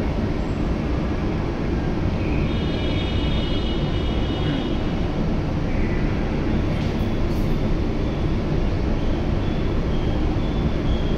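Steady hum and rush from a CRRC metro train car standing with its doors open, its air-conditioning and onboard equipment running. A faint high-pitched whine comes in about two seconds in and lasts a few seconds.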